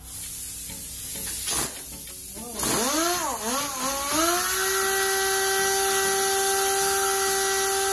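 Electric power sander running on a birch butcher-block countertop. First a steady hiss, then about three seconds in the motor's whine wavers up and down in pitch before settling to a steady tone.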